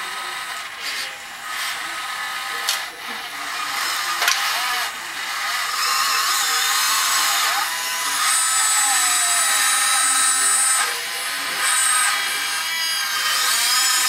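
Small electric motors and gears of a radio-controlled model cable backhoe whining as it swings and works its bucket cables, the pitch gliding up and down as the motors speed up and slow. A few sharp clicks come early, and a higher whine holds for a few seconds past the middle.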